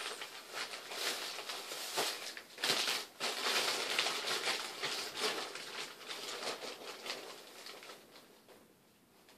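Crinkling of a plastic bag of paintballs being rummaged through, with small knocks and clicks as balls are handled; it dies down near the end.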